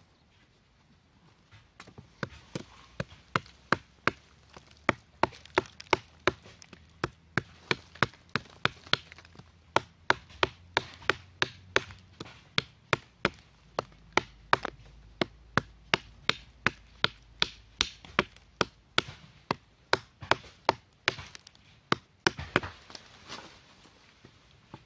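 Machete chopping a wooden branch, with sharp blows at about two a second that keep up for some twenty seconds and break off briefly near the end.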